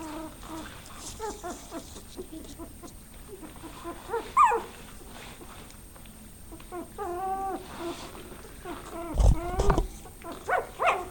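Norwegian Lundehund puppies whimpering and whining in short high calls, with a sharp yelp about four seconds in and longer whines later. A couple of loud low thumps come about nine seconds in.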